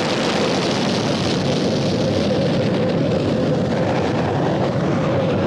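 Budweiser Rocket Car's hybrid rocket engine firing just after ignition: a loud, steady rushing noise with a faint steady hum running through it.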